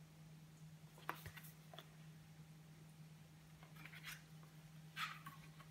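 Faint handling of a picture book: a few soft taps and rustles as the book is lowered and its pages turned, over a steady low hum.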